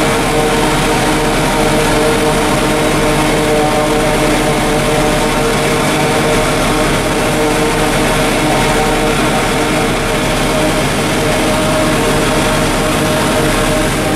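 John Deere 4055 tractor's six-cylinder diesel engine working under load, driving a New Holland FP230 forage harvester that is chopping standing corn for silage, heard from inside the tractor cab. A steady drone with a steady whine on top, unchanging throughout.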